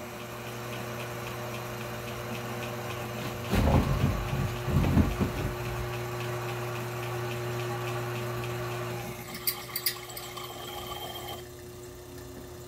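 Sherline mill spindle motor running steadily while a 1/4-inch twist drill cuts through a cast metal shift-linkage part, with a louder rough stretch of cutting about four seconds in. The hum drops about nine seconds in, followed by a few sharp clicks.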